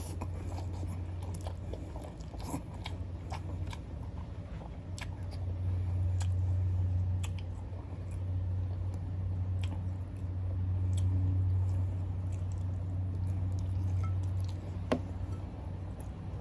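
A person chewing and biting into shrimp ramen noodles and boiled egg close to the microphone, with scattered wet mouth clicks. Under it a low rumble swells twice.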